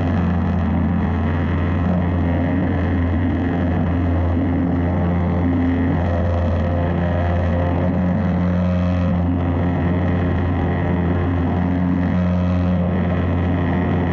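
Pressure washer spraying through a turbo nozzle onto terracotta roof tiles: a loud, steady spray of water over a low, unbroken hum.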